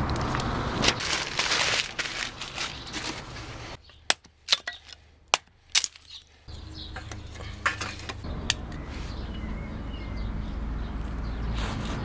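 Machete chopping dry softwood into kindling: four sharp knocks over about two seconds, after a stretch of rustling and crackling newspaper. Later a steady low rumble with a few light clicks as kindling is handled.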